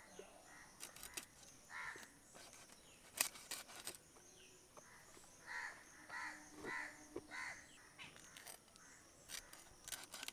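A crow cawing, faint: one call, then a run of four calls a little over half a second apart. A few sharp knocks and a steady high insect buzz sit underneath.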